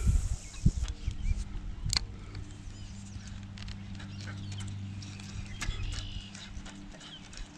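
A steady low hum under a few light knocks and clicks from fishing gear being handled in a plastic kayak, with faint bird chirps. The hum fades near the end.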